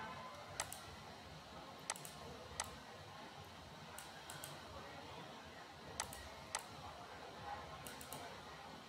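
Computer mouse clicks, sharp and separate at irregular intervals, some in quick pairs, over a faint steady background hiss.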